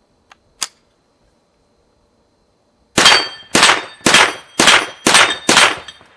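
Two light clicks, then six rapid shots from a Marlin Model 60 semi-automatic .22 rifle, about two a second, each with a metallic ringing after it.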